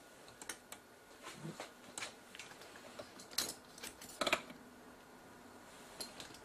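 Scattered small clicks and light metallic clinks of hand tools and small parts being handled during camcorder disassembly, with the loudest cluster of clicks about four seconds in.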